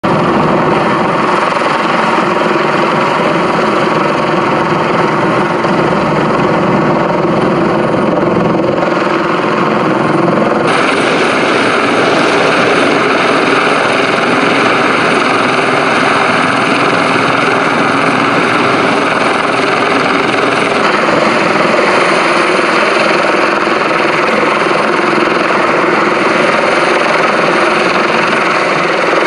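Fire-rescue helicopter hovering low overhead during a hoist, its turbine and rotor running loud and steady. The tone shifts abruptly about nine and eleven seconds in.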